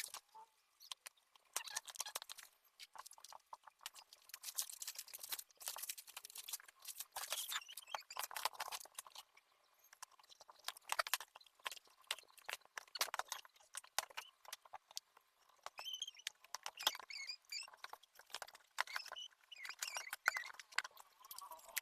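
Faint handling noise of a plastic-and-metal mid-tower PC case: irregular clicks, taps and rustling scrapes.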